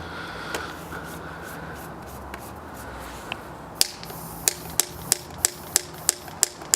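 Sharp, evenly spaced clicks, about three a second, starting about four seconds in: a combustion potato cannon's spark igniter being clicked over and over.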